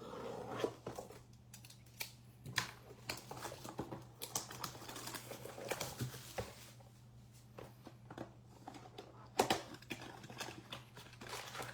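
Irregular clicks, taps and rustles of a trading-card blaster box being opened and its foil card packs handled, with a sharper snap about nine seconds in.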